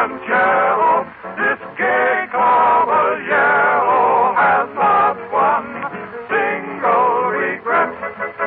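Male vocal group singing a Latin-flavoured popular song with dance-band accompaniment, heard on an old, narrow-band radio recording.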